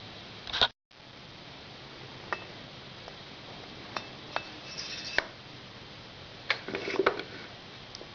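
Scattered light metallic clinks and taps from a valve and a valve-lapping tool being handled against a motorcycle cylinder head, with a short cut-out of the sound just under a second in.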